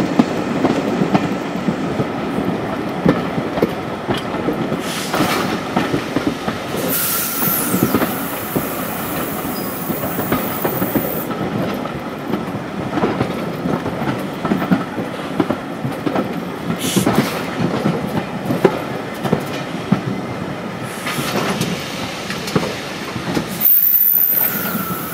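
Heritage railway carriage running over jointed track, wheels clattering steadily. A thin high-pitched wheel squeal sounds about a third of the way in and again near the end as the train takes the curve into the station.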